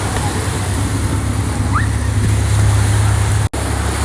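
Boat engine running with a steady low drone over surf and wind noise. The sound cuts out for an instant about three and a half seconds in.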